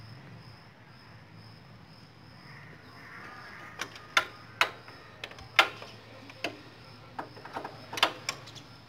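A socket wrench clicking and knocking on metal as the oil drain bolt under a Bajaj Discover's engine is tightened after an oil change. About a dozen sharp, irregular clicks start roughly four seconds in.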